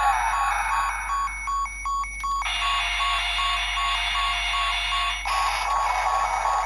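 Bandai DX Guts Sparklence toy transformation device playing electronic sound effects through its small speaker: a falling swoosh, then a steady electronic tone from about two and a half seconds in, giving way to a rushing noisy effect about five seconds in, all over a looping standby beep about three times a second.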